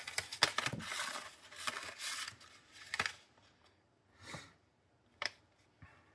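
Paper being handled, rustling and tearing for about two seconds, then three separate light taps.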